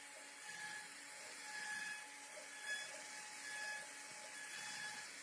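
Faint CNC machine running, its motors giving short repeated whines about twice a second over a steady hiss.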